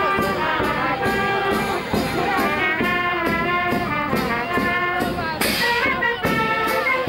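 Brass band playing a dance tune, with a steady drum beat at about two and a half beats a second under the melody.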